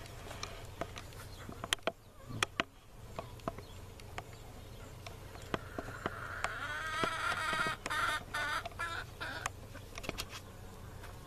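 A rooster crows once, starting about six seconds in: one long call that rises, holds and breaks up near its end. Scattered light clicks and taps run throughout.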